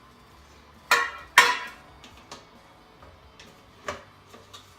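Metal cake pans being handled and sorted, knocking against one another: two loud ringing clanks about a second in, then a few lighter knocks.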